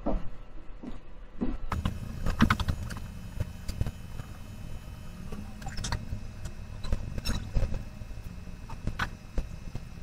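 Fast-forwarded background noise: a steady low rumble with scattered sharp clicks, starting abruptly about two seconds in.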